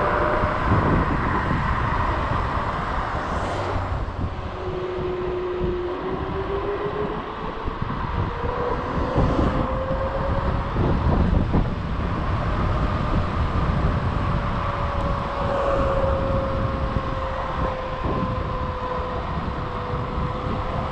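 Electric scooter's hub motors whining at speed, the pitch dipping about four seconds in and then climbing back over the next several seconds, under steady wind and road rush on the microphone.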